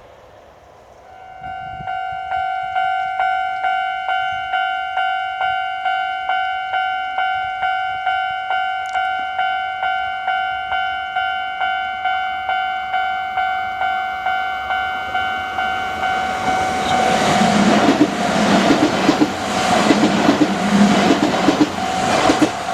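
Level-crossing warning bell on the Kintetsu Minami Osaka Line starting to ring about a second in, an electronic ding repeating about twice a second. Near the end a train passes over the crossing with a loud rumble and wheel clatter while the bell keeps ringing.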